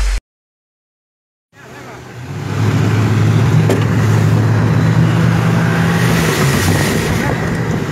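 Motorboat engine running at speed with a steady low drone, mixed with the rush of wind and water; it comes in about a second and a half in after a short silence and builds to full level over the next second.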